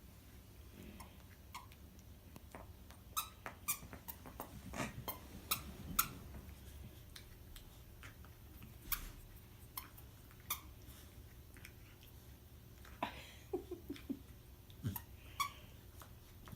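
Dog's squeaky toy squeaking in short, irregular squeaks as it is squeezed, in two clusters with a pause between.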